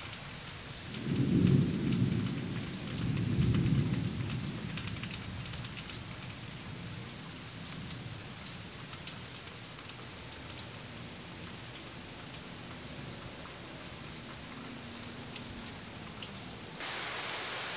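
Thunderstorm rain falling steadily with scattered drips ticking through it. A low rumble of thunder begins about a second in and dies away over about three seconds. The rain grows louder near the end.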